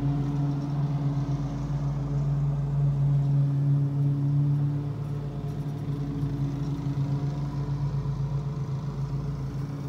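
Car engine and road noise heard from inside the cabin: a steady hum at an even pitch with a low rumble beneath.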